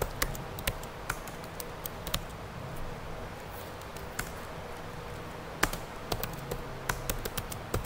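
Computer keyboard being typed on: irregular keystroke clicks in two runs, with a lull in the middle.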